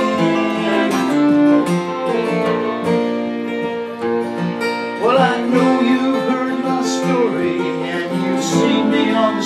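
Instrumental break in a country song: a fiddle bowing the melody, with a rising slide about halfway through, over two acoustic guitars.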